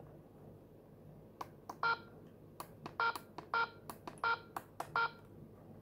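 Keypad of a ZKTeco LX50 fingerprint attendance terminal being pressed, each press answered by a short electronic beep. There are five beeps from about two seconds in, with soft button clicks in between.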